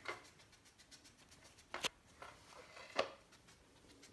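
A few faint clicks and taps on a polished stone tile floor, spaced out, one of them a quick double: a Pomeranian puppy's claws and the plastic half-ball toy it is nosing knocking on the tiles.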